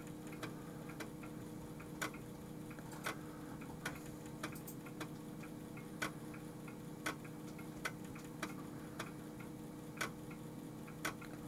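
Amiga 3.5-inch floppy drive's head stepper clicking, single sharp clicks at uneven spacing of about one a second, over a faint steady hum. The drive is seeking and failing to read the boot disk, so the Amiga does not start.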